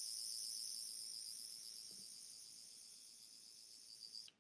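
Tenth Doctor sonic screwdriver toy playing its electronic sound effect: a high-pitched, rapidly pulsing whine that fades a little and cuts off suddenly near the end.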